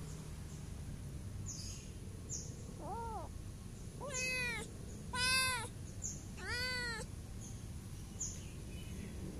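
A stray cat meowing four times: a softer meow about three seconds in, then three louder drawn-out meows in quick succession, each rising and falling in pitch, the middle one the loudest.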